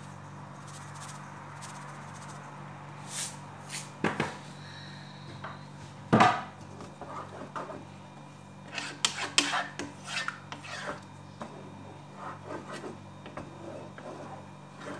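Wooden spoon stirring yogurt in a pot, scraping and knocking against the pot's sides and bottom in irregular strokes, with one louder knock about six seconds in. A steady low hum runs underneath.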